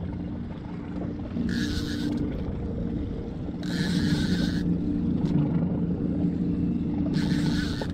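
A 60 hp outboard motor idles with a steady low hum. Three short hissing bursts rise over it.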